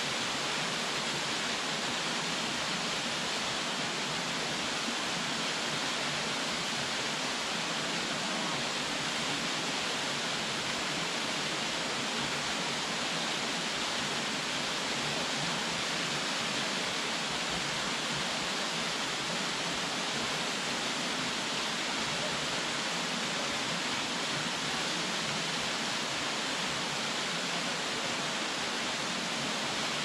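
Minoo Falls, a waterfall of about 33 m, pouring into its plunge pool: a steady, unbroken rush of falling water.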